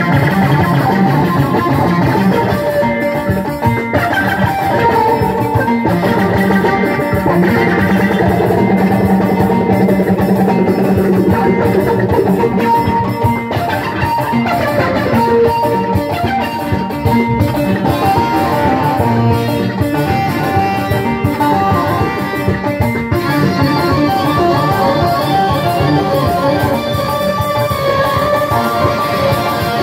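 Loud, continuous music with plucked strings and drums.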